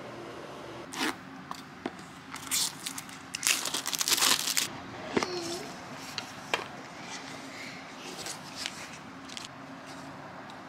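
Crinkling and rustling of packaging as a small cardboard box is opened and a camera lens and its plastic-wrapped parts are handled, with a few light clicks. The rustling is loudest about three to four and a half seconds in, then lighter and more scattered.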